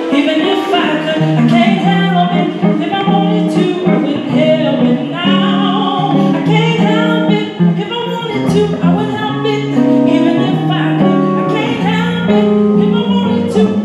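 A woman singing a soul song into a microphone, accompanied by electric guitar. The vocal lines bend and hold long notes over the guitar.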